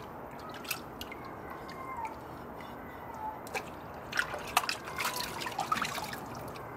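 Vinegar-and-water soak dripping and splashing off a cast iron bacon press as it is held over a soaking bin and dipped back into it. Scattered drips and small splashes, busiest in the second half.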